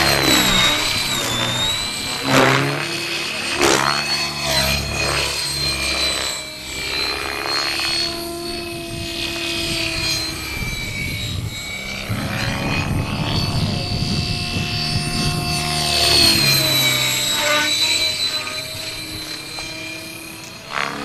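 Radio-controlled model helicopter flying aerobatics: a whine and rotor noise that keeps rising and falling in pitch as it manoeuvres, with quick sweeps as it swoops past about two and four seconds in and again around sixteen seconds.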